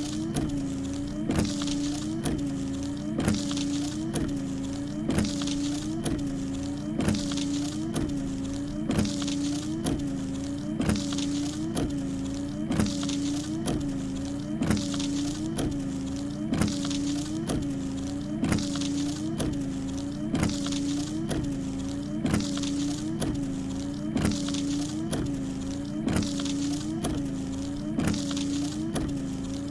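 A pickup truck's small electric motor mechanism working in a steady cycle about once a second. Its hum dips in pitch with a click at each stroke, and some hiss comes and goes.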